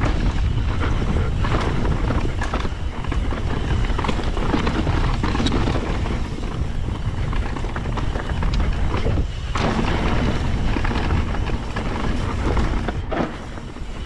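Wind buffeting the microphone over a mountain bike's tyres rolling on loose rocky dirt, with frequent clicks and rattles of the bike over the rocks.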